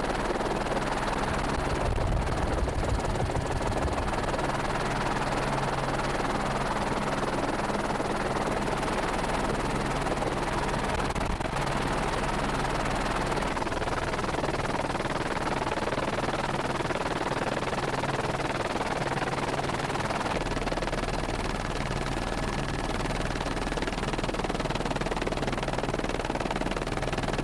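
Steady helicopter noise, rotor chop and engine drone, heard from aboard the camera helicopter.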